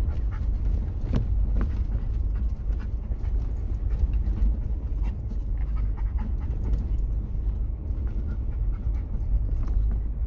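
Inside the cab of an off-road vehicle driving over a rough dirt and snow trail: a steady low rumble of engine and tyres, with scattered irregular rattles and knocks from the bumps.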